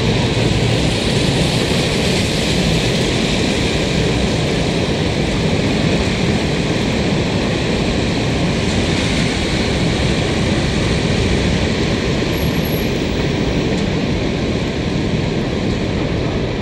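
Steady rushing rumble of a freight train of empty boxcars rolling past.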